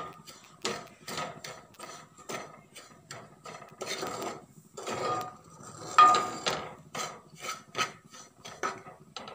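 Spoon scraping and stirring semolina frying in a little oil in a pan, a quick irregular run of strokes against the pan at about two to three a second, the loudest about six seconds in.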